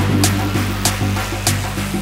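Electronic background music: held low bass notes under a short repeating riff, with a sharp percussive hit about every 0.6 seconds.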